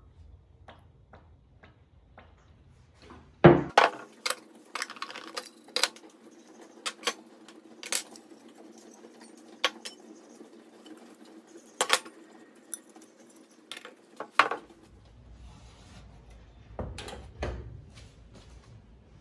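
Small stamped-steel toy parts clinking and knocking against each other and the workbench as they are handled and wiped down with an acetone rag: a string of sharp metallic clicks, with one louder knock about three and a half seconds in.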